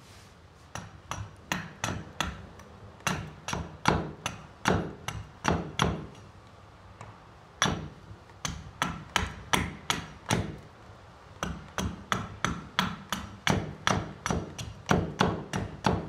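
Forged axe striking a stained oak blank on a wooden chopping block: quick sharp blows, about two to three a second, in three runs with short pauses between, each blow with a brief high ring.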